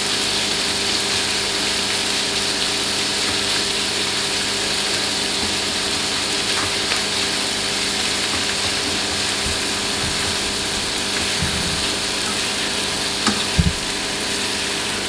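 Raw prawns frying in hot oil with chopped garlic in a pan over a high flame: a steady sizzle with a low steady hum underneath. A few knocks of the spatula against the pan come about two-thirds of the way in and near the end.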